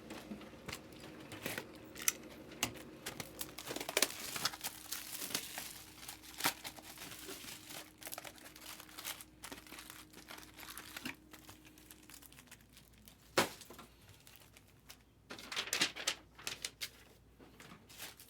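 Plastic wrapping and trading-card packs crinkling and tearing as card boxes are opened by hand, with many quick crackles and handling clicks.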